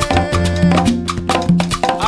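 Background music with a stepping bass line, held melodic notes and regular percussion strokes.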